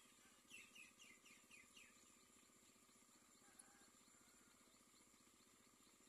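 Myna nestlings giving a quick run of high, falling begging squeaks, about five in a second and a half, starting about half a second in, as the adult myna feeds them.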